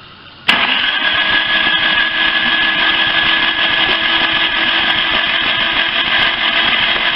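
A Lifan car's engine being turned over by its starter motor, a steady mechanical whirr that starts suddenly about half a second in. The engine is being cranked without firing, to work the decarbonising fluid poured into its cylinders.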